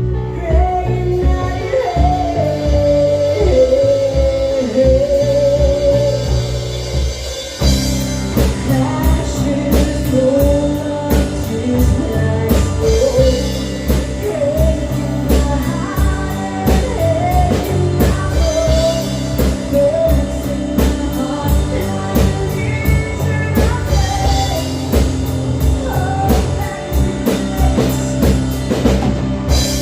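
Rock song with a lead vocal over guitar and drums. After a brief drop about seven seconds in, the drums come in with a steady beat of cymbal hits.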